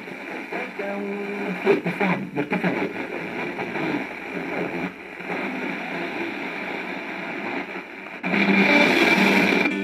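FM radio tuned to 87.8 MHz receiving a weak, distant station by sporadic-E propagation: faint broadcast audio buried in hiss and fading. A little past eight seconds in the signal comes up and the sound turns abruptly louder.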